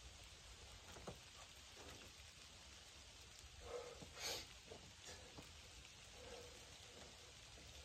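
Near silence: a faint steady hiss with a few light taps and scuffs from a climber's hands and shoes on sandstone, and one short louder rush of noise about four seconds in.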